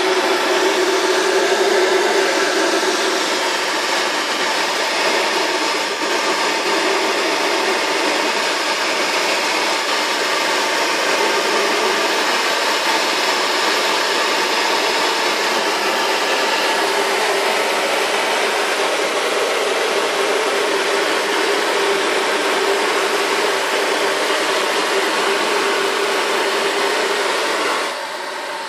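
Steady rush of airflow over the canopy of a Grob Astir glider in flight, with a steady low tone running through it. It falls off a little near the end.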